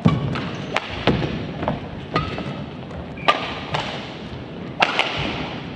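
Badminton rally: rackets striking the shuttlecock, a string of sharp hits roughly once a second, over the background noise of an indoor hall.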